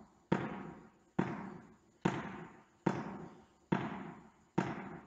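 A small ball bounced on a sports-hall floor and caught, six times at a steady pace of just under one bounce a second. Each bounce is a sharp smack that echoes through the large hall.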